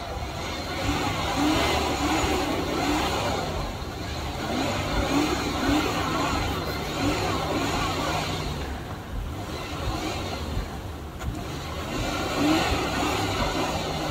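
Jeep Grand Cherokee's engine revving as the SUV struggles to climb a muddy slope, with short rising surges in pitch. The vehicle is stuck and being pushed.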